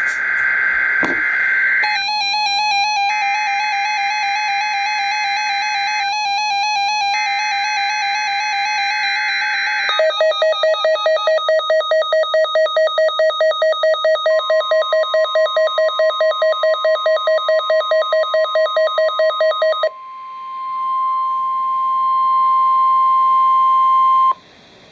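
NOAA Weather Radio Required Weekly Test: three bursts of the buzzing SAME digital alert header, with a weather radio's own alert sounding over them, first a warbling tone, then a rapid pulsing beep of about four a second. Partway through, the steady 1050 Hz National Weather Service alarm tone comes in and runs on alone once the beeping stops, then cuts off suddenly.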